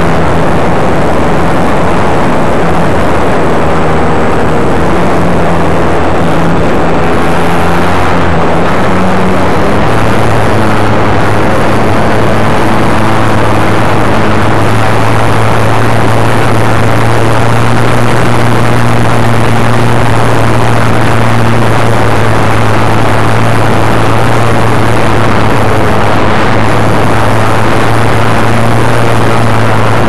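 Onboard sound of an E-flite Eratix RC plane's electric motor and spinning propeller in flight, heard from a camera mounted on the plane, with loud wind rush over the microphone. The motor tone changes pitch about ten seconds in, then holds steady.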